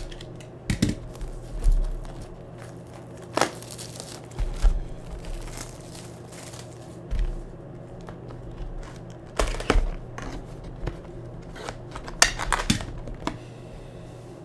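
Plastic shrink wrap being cut and peeled off a cardboard trading-card retail box, then the box opened, with crinkling, scraping and irregular knocks of the box being handled.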